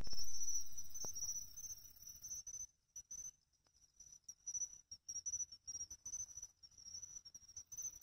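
Pine cricket (Xenogryllus marmoratus) singing in the grass: a continuous high-pitched ringing trill that swells and fades in short pulses.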